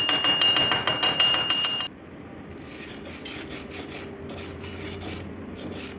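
Rapid light blows on steel, about five or six a second, each ringing with a bell-like tone; they stop abruptly about two seconds in. After a short pause comes a softer, irregular scratchy hissing.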